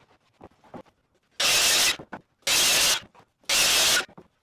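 Rhythmic rasping strokes of wood scraping on wood, about one a second, each lasting about half a second, starting about a second and a half in.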